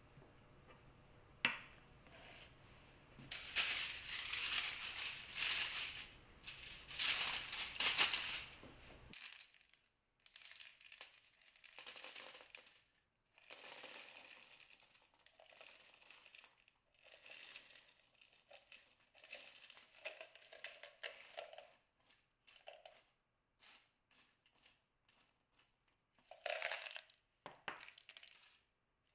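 Aluminium foil crinkling as it is pressed into a fluted tart tin, then metal pie weights poured and spread over the foil, clicking and rattling against each other in short spurts, with one louder pour near the end.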